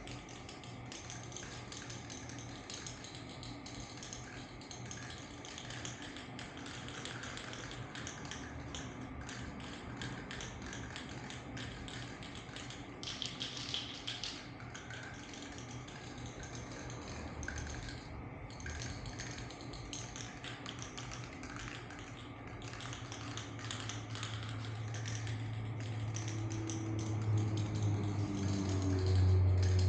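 Rapid, irregular light clicking and tapping over a steady hiss, with a low hum that grows louder near the end.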